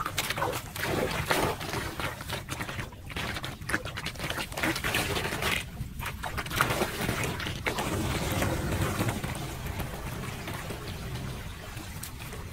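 Shallow floodwater splashing and sloshing as gloved hands and a stick rake leaves and debris out of a clogged street drain. The splashes come irregularly for most of it, then settle into a steadier wash of water near the end.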